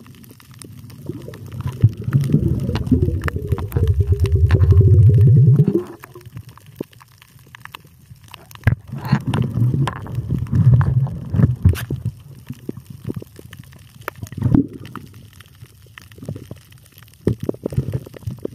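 Muffled underwater gurgling and bubbling picked up by a submerged camera, loudest in a long, rapid bubbling burst from about three to six seconds in, then patchier bubbling with a few short knocks.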